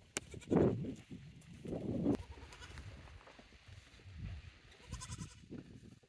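Goats bleating: two loud bleats, about half a second and two seconds in, followed by quieter knocks and shuffling.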